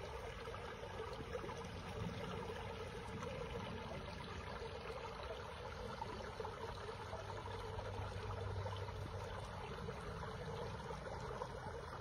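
Shallow creek water running over a line of rocks in a small riffle, a steady babble and trickle.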